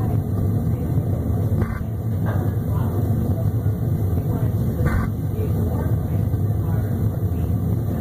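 Burner of a Whirlpool 40-gallon propane water heater firing with a steady low rumble and a few faint crackles. This is burner behaviour the owner is questioning after installing the heater.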